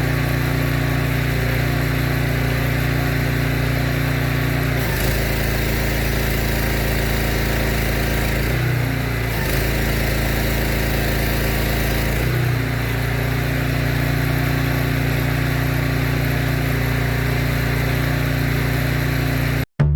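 Petrol engine of a pressure washer running steadily. Its note dips and shifts briefly three times, about five, nine and twelve seconds in.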